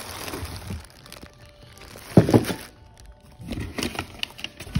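Plastic wrapping and bubble wrap crinkling and rustling as gold metal centerpiece parts are handled in a cardboard box, with a louder knock about two seconds in and a run of crackles near the end.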